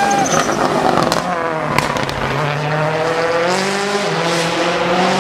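Citroën C4 WRC rally car's turbocharged four-cylinder engine revving hard at speed, its pitch dropping and then climbing again through gear changes. There are sharp cracks about a second and just under two seconds in.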